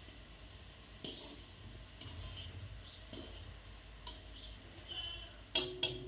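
Wire spider skimmer tapping against the rim of an iron kadai as gulab jamun fry in bubbling oil, with faint sizzling underneath. There are a few light clicks, then two louder ringing metal clinks about a quarter second apart near the end.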